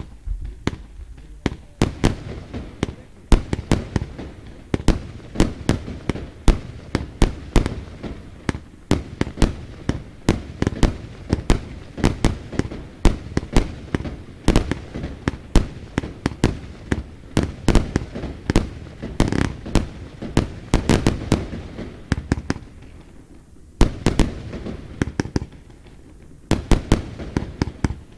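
F2 compound firework cake firing: a rapid, dense series of sharp launch reports and bursting shots, several a second, with two short pauses near the end before the shots pick up again.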